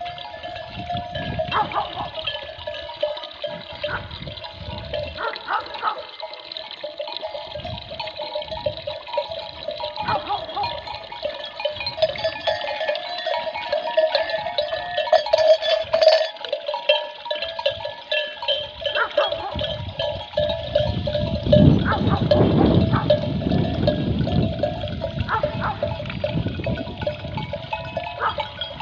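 Many sheep bells clanking and ringing together, overlapping steadily as a grazing flock moves about. A low rushing noise joins about two-thirds of the way in.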